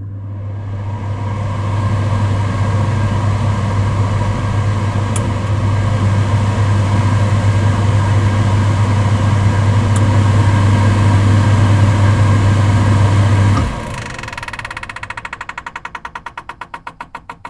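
Cooker hood extractor fan running: a steady whoosh of air over a strong low hum, building up over the first couple of seconds. About four seconds before the end it is switched off with a click; the hum drops away and a rapid pulsing fades out as the fan spins down.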